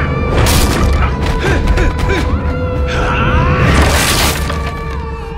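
Fight-scene soundtrack from a kung fu film: a dramatic music score under rapid punches, whooshes and impacts, with a big crash a little before four seconds in as a body hits a wooden lattice screen.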